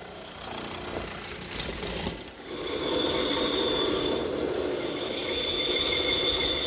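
A hollow-chisel mortiser boring a square mortise into a cypress armrest, then, about two and a half seconds in, a bandsaw running steadily and louder as it cuts a curve through the cypress board.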